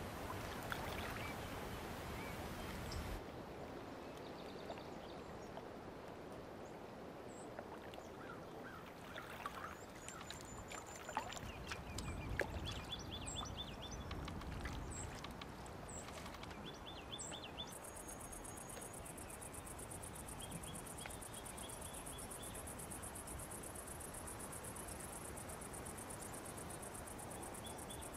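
Quiet outdoor ambience: a soft even hiss, with faint scattered bird chirps and short trills, then from about two-thirds of the way in a steady high trill of crickets.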